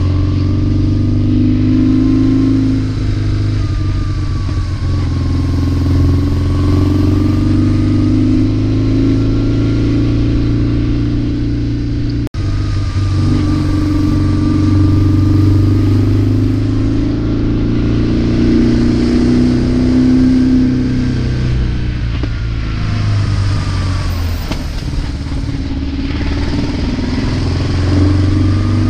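Motorcycle engine running on the move, its pitch rising and falling as the throttle is opened and closed. There is a momentary dropout in the sound about twelve seconds in.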